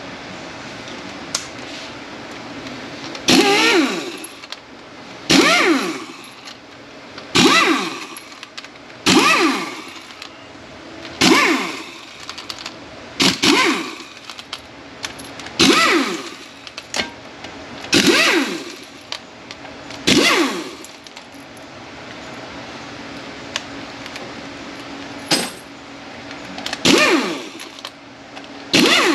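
Repeated metal-on-metal strikes on a transmission, about one every two seconds, each with a short ring that drops in pitch, with a gap of several seconds in the second half.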